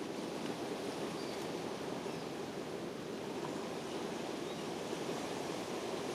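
Small waves washing over a pebble beach in shallow water, a steady rush of surf with no breaks.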